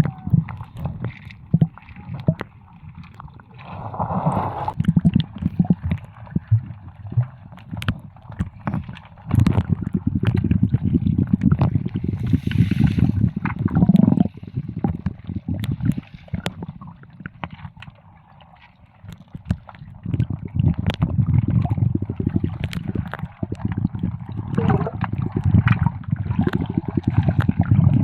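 Seawater splashing and gurgling at the shore, in uneven swells that rise and fall over several seconds.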